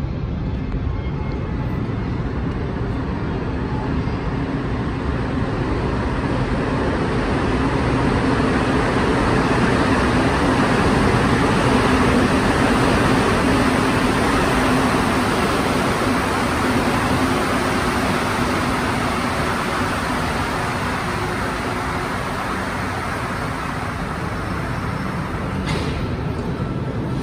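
Rubber-tyred Montreal Metro train pulling into the station and slowing to a stop at the platform. Its running noise swells to a peak midway, then eases as it brakes. There is a short sharp click near the end.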